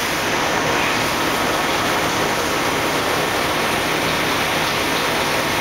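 Coolant spraying and splashing over the work inside a Campbell vertical CNC grinder as it runs: a steady, even rushing hiss.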